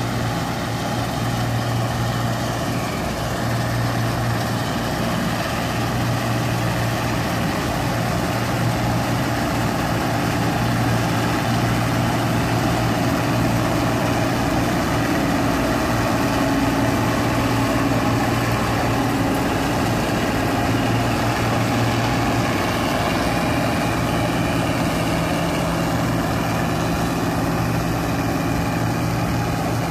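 Arbos 125 combine harvester's Perkins six-cylinder diesel running steadily under load while it cuts wheat. About 24 seconds in the engine note changes and a second, higher hum joins in.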